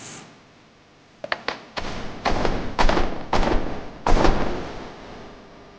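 Two quick taps, then a run of five soft thuds about half a second apart, fading towards the end.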